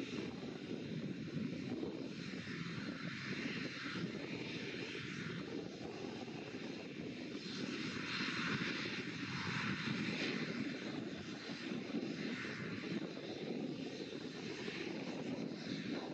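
ATR 72-600 twin turboprop engines running as the airliner turns on the ground, a steady engine and propeller sound that swells and grows louder about halfway through as it comes side-on.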